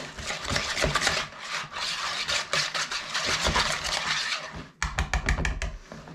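A metal utensil stirring a thick, creamy mixture in a plastic mixing bowl, scraping and knocking against the bowl's sides, with a quick run of sharp taps about a second before the end.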